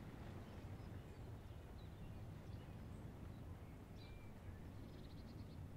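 Faint outdoor ambience: a steady low rumble with a few faint bird chirps, including a short rapid trill about five seconds in.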